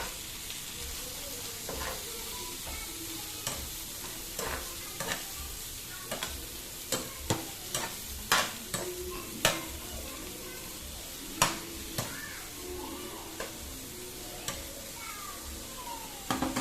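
Eggplant pieces sizzling in hot oil in a pan while being stirred, with a utensil clicking and scraping against the pan at irregular moments.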